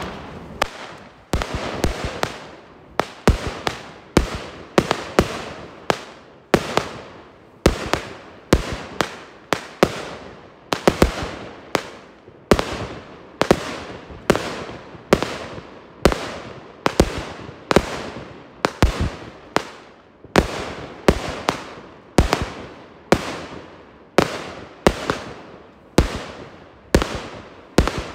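Consumer firework cake ("Tiger") firing shot after shot, about one loud bang a second, each tube's launch and aerial burst ringing out with a short fading tail. The bangs are really hard.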